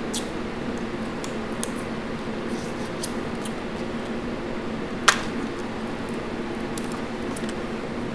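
Boiled crawfish being shelled by hand: small clicks and cracks of shell, with one sharper snap about five seconds in, over the steady hum of a box fan.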